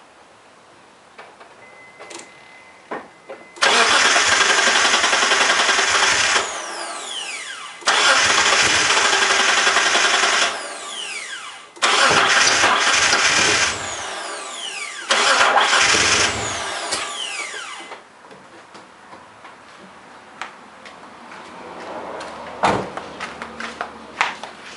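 Mitsubishi 3000GT's starter cranking its 3.0-litre V6 four times, each attempt two to three seconds long, with the starter's whine falling away after each release. The engine does not catch: a no-start.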